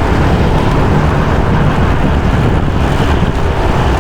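Loud, steady rumble of a moving vehicle, its engine and travel noise continuous without a break.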